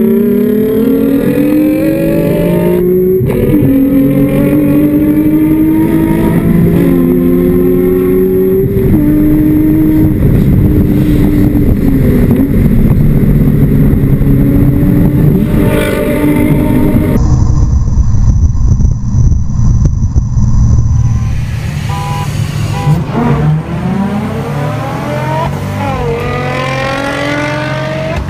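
Modified Nissan 350Z engines at full throttle, the engine note climbing through the revs and dropping at each upshift, twice in the first nine seconds. Later the sound changes abruptly, and near the end the revs rise and fall quickly.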